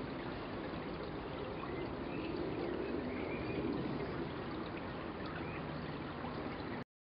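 Steady rushing ambient noise, much like running water, which cuts off abruptly near the end.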